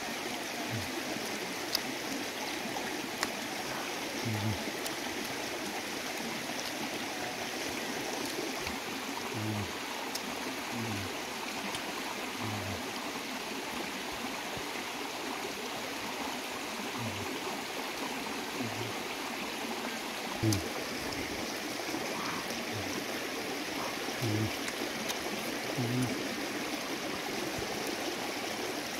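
Steady rushing of a shallow stream running over rocks, with short low sounds every second or two.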